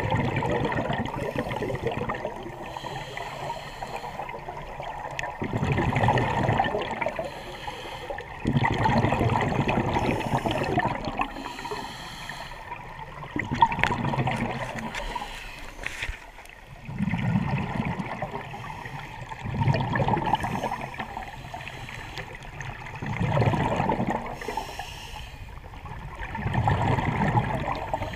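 Scuba diver breathing through a regulator underwater: a rush of exhaled bubbles about every three to four seconds, with fainter hissing between the bubble bursts.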